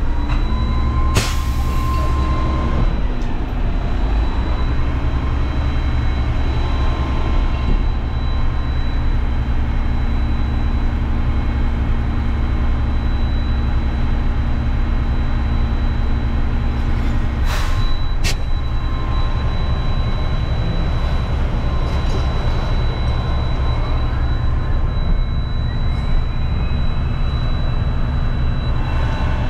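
Front-load garbage truck's diesel engine running with a hydraulic whine while the ejector blade is cycled back. A whine rises near the start and again near the end, with a few sharp clunks, about a second in and around halfway.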